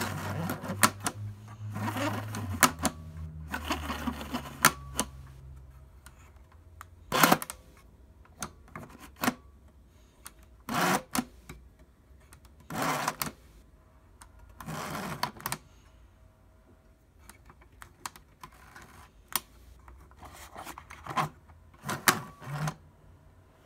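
Speed Graphic Pacemaker's cloth focal plane shutter being worked by hand. Its side key is turned and the curtain moves across the film opening, giving runs of sharp mechanical clicks and clacks. The clicking is dense for the first few seconds, then comes in separate short clusters about every two seconds.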